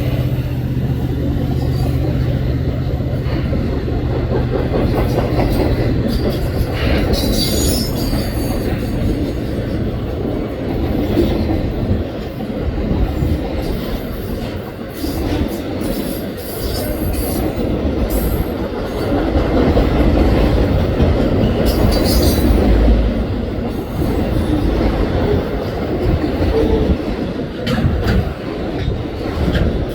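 Canadian National freight train of autorack cars passing close by a grade crossing. The diesel locomotives' low engine drone fades over the first few seconds, giving way to a steady rumble of the passing cars with scattered sharp clicks from the wheels.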